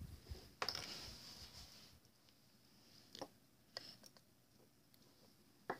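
Faint handling noises: a sharp scrape about half a second in that trails off over about a second, then a few light clicks.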